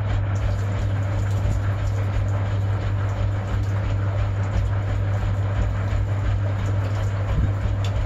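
Constructa K5 front-loading washing machine running a wash, its motor giving a steady low hum as the drum turns and the suds and water slosh inside.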